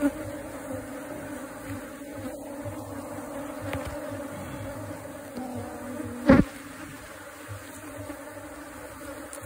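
Honeybee colony buzzing steadily as its comb is cut out of a tree trunk. A brief loud burst stands out about six seconds in.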